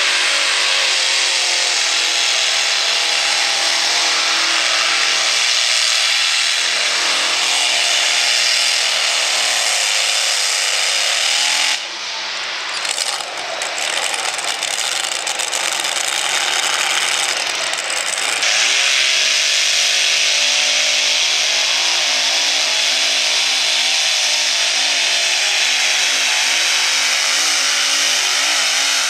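Multi-engine modified pulling tractors running loud, their engines giving a steady, hard mechanical din. The sound shifts abruptly about 12 seconds in and again about 18 seconds in, where the recording jumps to a different tractor.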